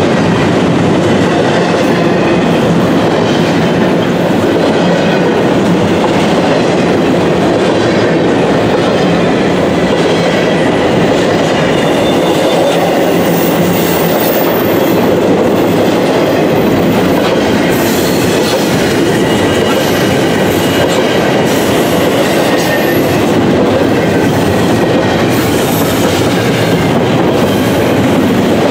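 Double-stack intermodal freight cars rolling steadily past at trackside, a loud continuous rumble with the wheels clacking on the rails. Faint high-pitched wheel squeal comes in over the second half.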